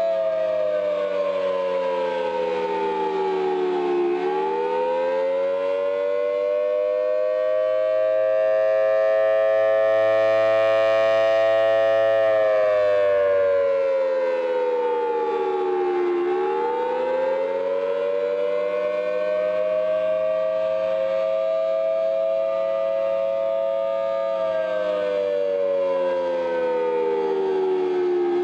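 Outdoor civil-defense warning siren sounding a steady two-tone chord. Its pitch sags and climbs back about every twelve seconds, and it swells louder about ten seconds in.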